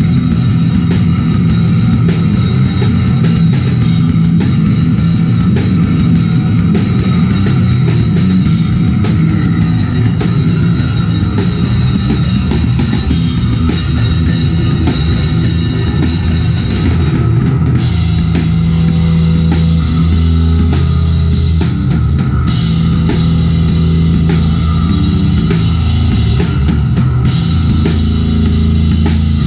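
Live punk/powerviolence band playing loudly without letup: fast, busy drum kit with cymbals over a heavy electric guitar. About 18 seconds in the cymbal wash eases and long, sustained low notes take over.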